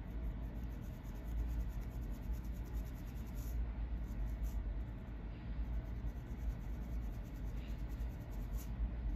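Fine-tooth plastic comb scratching across a dry, flaky scalp in quick, repeated short strokes, loosening dandruff flakes.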